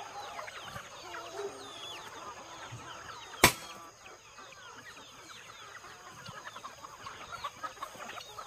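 A large flock of chickens clucking and peeping in a dense, continuous chatter of short calls, with one sharp snap about three and a half seconds in.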